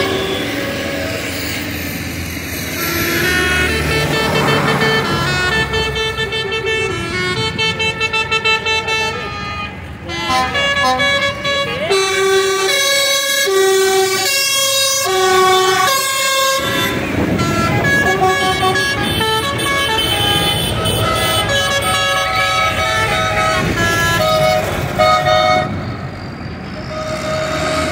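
Procession of tractors and trucks driving past with diesel engines running, their horns sounding. Through the middle, a tune of short stepped notes plays over the traffic.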